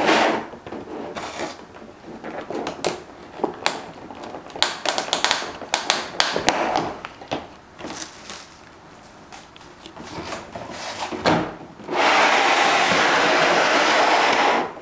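Clear plastic packaging and bubble wrap crinkling and crackling as they are handled and lifted off a foam packing tray, a run of irregular sharp crackles and rustles. About twelve seconds in, a louder steady noise lasts nearly three seconds and cuts off suddenly.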